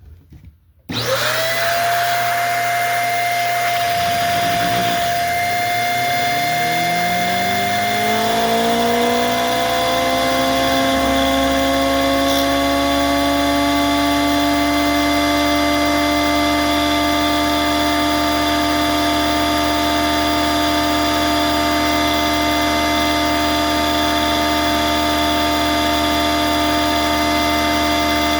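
Homemade Lego-framed table saw, its blade driven through U-joints by a motor, starting about a second in and spinning up in a rising whine that levels off after several seconds into a steady high-speed whine, run flat out as an RPM test.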